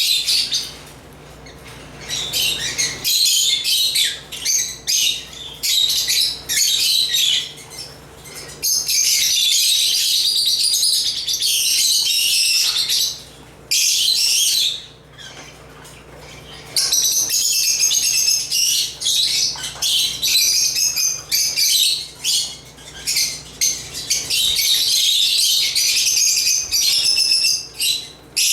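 African lovebirds chirping and chattering in rapid, high-pitched runs with a few short pauses, several birds calling over one another.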